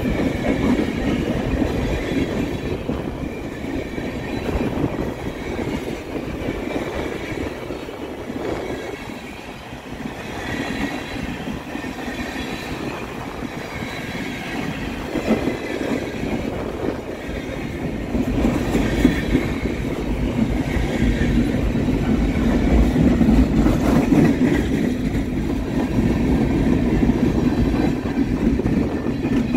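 Freight train cars rolling past on the rails: a continuous rumble of steel wheels with clickety-clack over the rail joints, growing louder about two-thirds of the way through.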